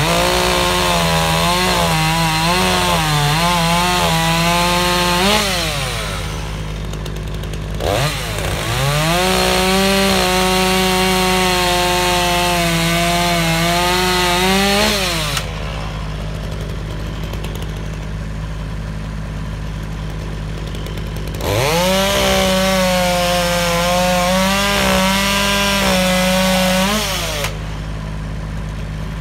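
Chainsaw cutting through logs at full throttle three times, each cut lasting about six seconds. The engine note wavers and sags as the chain bites into the wood, then drops back to idle between cuts.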